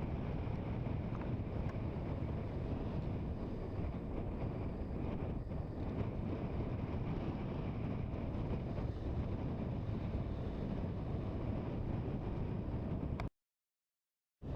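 Steady low rumble of wind buffeting the microphone over ocean surf. The sound cuts to silence for about a second near the end.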